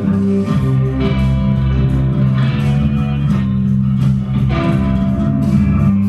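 Instrumental psychedelic rock jam: electric guitar playing over a steady electric bass line, performed live.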